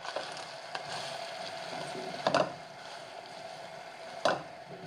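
Beef tendon, garlic and green onion stir-frying in a wok: a steady sizzle with a constant hum under it, and two loud knocks of the spatula against the pan, about two and four seconds in.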